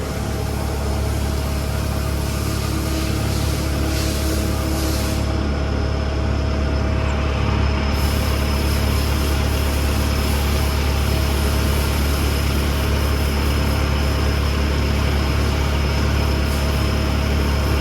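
A vehicle engine running steadily at constant speed, with a steady low drone and a faint held whine above it.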